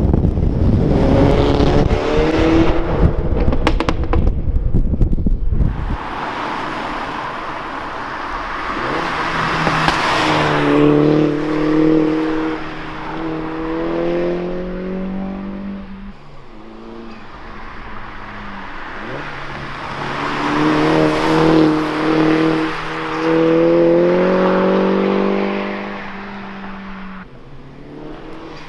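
Mini Challenge 210's turbocharged four-cylinder engine accelerating past a roadside microphone several times, its note rising and then fading as it goes away. Wind buffets the microphone hard for the first few seconds, and tyre noise on the wet road swells as the car goes by.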